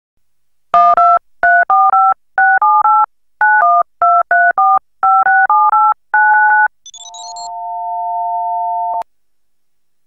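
Telephone touch-tone (DTMF) dialing: about twenty short two-note keypad beeps in quick groups. Then a brief rising three-note chirp and a steady two-note phone line tone that swells for about two seconds and is cut off by a click.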